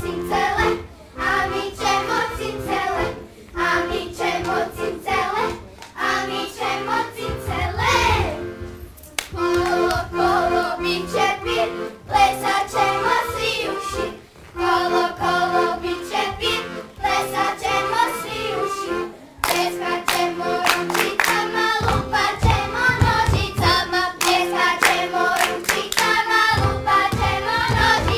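Group of children singing a traditional Hvar children's song together. In the second half sharp handclaps join the singing, with low thuds near the end.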